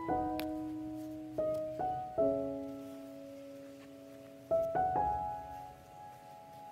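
Background piano music: slow notes and chords struck a few at a time, each left to ring and fade, with a quieter stretch in the middle.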